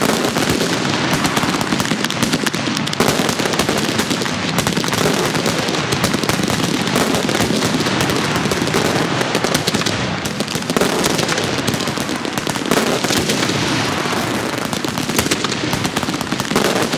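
Fireworks going off without a pause: a dense crackle of many rapid pops and bangs.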